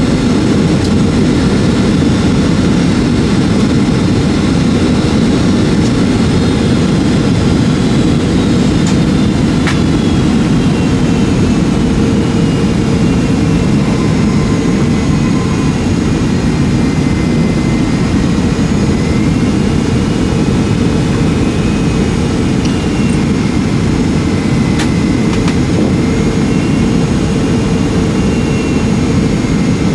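Boeing 757-200 jet engine and airflow noise heard inside the cabin: a steady, loud rumble with a faint whine that drifts slowly in pitch as engine power changes.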